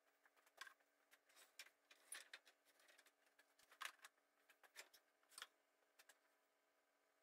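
Faint, irregular clatter of wooden boards being handled and set down on a pile of scrap lumber: a dozen or so light knocks and clicks, unevenly spaced.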